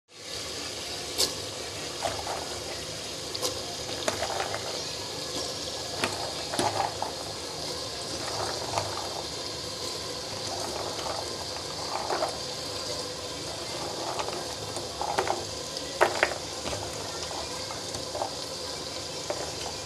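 Meat masala bubbling and sizzling in an open pressure cooker on the flame: a steady hiss with soft pops every second or two.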